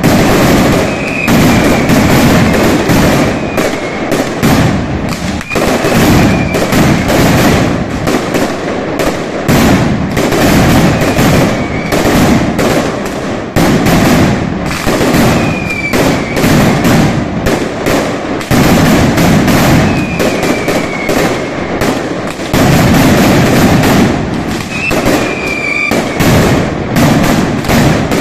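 Mascletà firecrackers (masclets) exploding along the ground in a rapid, continuous barrage of loud bangs that surges and eases. A few short falling whistles cut through it.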